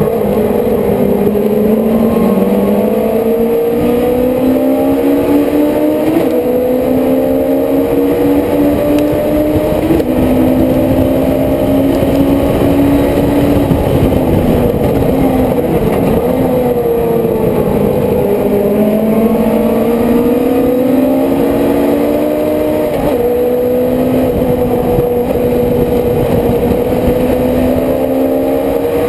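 Race car engine heard onboard at racing speed, its pitch climbing and falling several times as it accelerates and slows through the corners, with wind rushing over the microphone.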